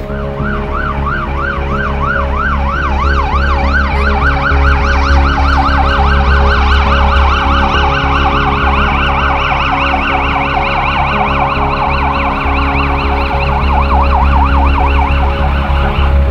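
Emergency-vehicle siren in a fast yelp, its pitch sweeping rapidly up and down several times a second, over a steady low hum and bass.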